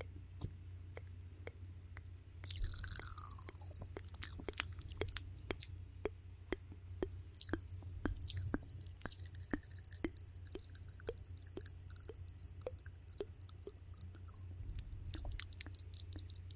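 Close-miked ASMR mouth sounds: many quick wet clicks and lip smacks, with a louder breathy hiss about three seconds in and a softer hiss through the middle, over a steady low hum.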